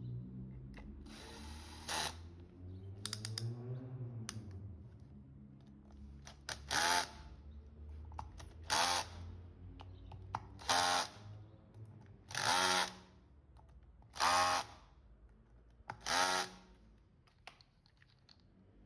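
Cordless electric screwdriver run in short bursts, about seven times at roughly two-second intervals, driving and tightening screws.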